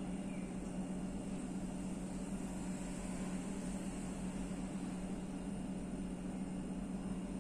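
Midea mini rice cooker on its cook cycle, giving a steady low hum under an even hiss as it heats.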